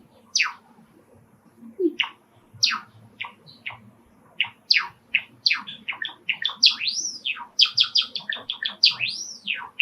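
Male Java sparrow (sakura buncho) singing its song. A few sharp, spaced, downward-sweeping notes speed up about halfway into a quick run of chirps, with a couple of rising-and-falling notes near the end.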